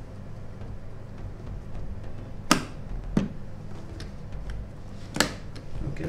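A DDR4 RAM stick being pressed down into a motherboard memory slot: sharp plastic clicks, two loud ones about two and a half seconds apart with a fainter one between, as the slot's retention latches snap shut and lock the module in.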